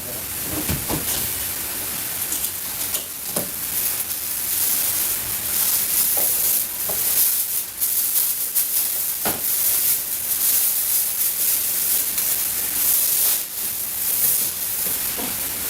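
Food frying in a hot pan, a steady sizzling hiss, with a few short knocks or scrapes now and then.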